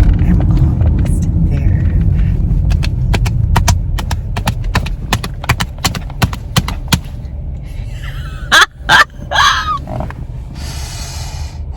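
Low road rumble inside a moving car's cabin, with a run of sharp, evenly spaced clicks for a few seconds, then a few loud sudden sounds with a sliding pitch and a short hiss near the end.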